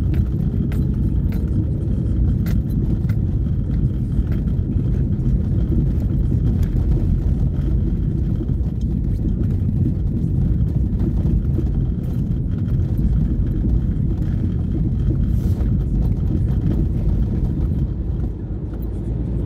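Steady low rumble of a car driving over cobblestones, heard from inside the cabin, with scattered small clicks and rattles. It is briefly quieter near the end.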